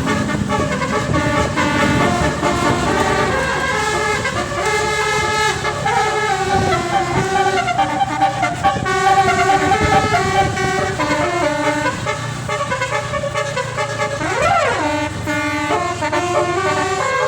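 Indonesian bus basuri horn, the multi-note musical telolet horn, playing a long run of stepped notes as a tune over the bus's running engine. About fourteen seconds in, a quick siren-like sweep rises and falls.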